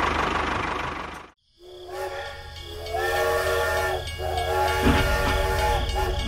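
A motor runs with a hiss and is cut off suddenly. After a moment of silence, a chord of several steady whistle tones sounds in long repeated blasts, like a train horn.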